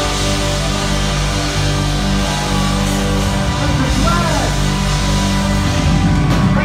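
A live rock and soul band playing loud and steady: electric guitars and drums under held chords from a horn section with saxophone.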